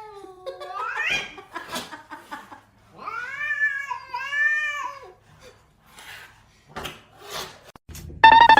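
Cat meowing in long, drawn-out yowls: one rising call in the first second, then a longer call lasting about two seconds. A few short knocks follow, and a louder call breaks in suddenly near the end.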